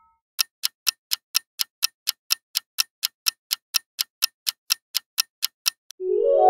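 Countdown-timer clock ticking sound effect, sharp even ticks at about four a second. Near the end the ticking stops and a ringing chime begins, marking time up on the quiz countdown.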